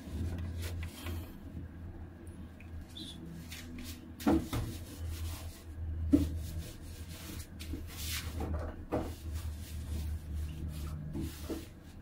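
Knocks and rattles of a top-loading washing machine's plastic tub and lid being handled by hand. There are sharp knocks about four, six, eight and nine seconds in, with light rubbing between them, over a steady low hum.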